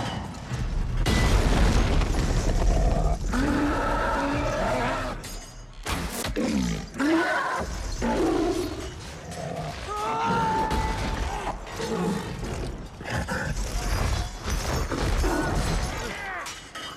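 Fantasy-film battle soundtrack: a cave troll roaring and bellowing amid crashes and booming impacts, over orchestral music, in a large echoing stone hall.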